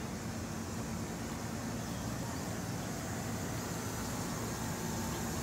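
Steady hum and hiss of an electric train standing at a station platform, with a low, even drone and no change in pace.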